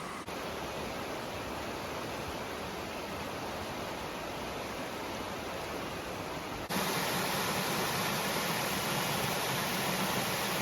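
Steady rush of flowing creek water and a waterfall, with no distinct events. It jumps abruptly louder about two-thirds of the way through.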